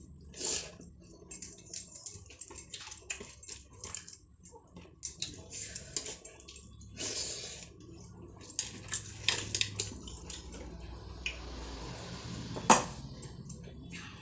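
A person eating: irregular chewing and short mouth clicks, with clinks of a plate. One sharp knock comes near the end.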